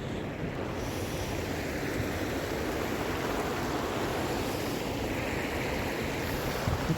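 A steady rushing noise.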